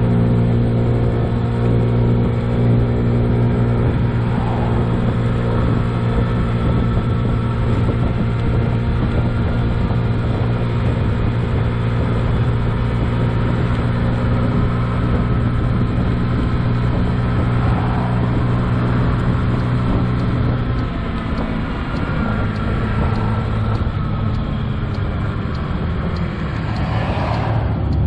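2007 Honda Ruckus 49cc four-stroke single-cylinder scooter engine running at a steady cruising speed, a constant drone. About three quarters of the way through the throttle eases off and the engine note drops, then picks up again near the end.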